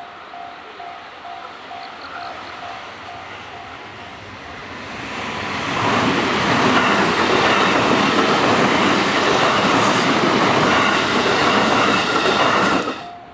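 A Japanese level-crossing warning bell rings in pulses, then a JR West electric commuter train comes up and rushes past at speed with a rattle of wheels over the rails. The train noise builds from about five seconds in, stays loud, and cuts off suddenly near the end.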